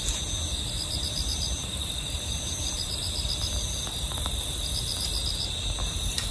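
Insects chirring steadily outdoors: a continuous high buzz with a faster pulsing trill above it, over a low rumble.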